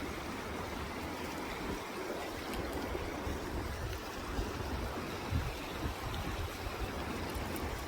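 Steady rush of river water, an even hiss with uneven low rumbles beneath it.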